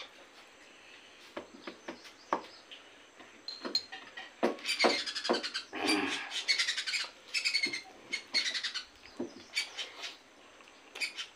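Close-miked eating sounds from hand-eating: fingers squelching and kneading rice and meat on a banana leaf, with wet mouth clicks and chewing. They come in quick runs of clicks that get busiest from about four to nine seconds in.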